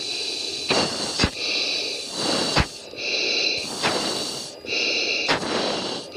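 Heavy breathing through an oxygen mask, heard over the fighter's intercom: a run of hissing breaths about a second each, separated by sharp clicks, typical of G-straining breathing during a hard turn.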